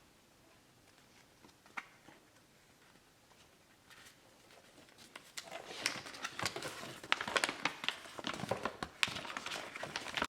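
Packaging being handled and opened: crinkling and rustling with sharp clicks and snaps. It is sparse at first and becomes busy and continuous from about halfway through.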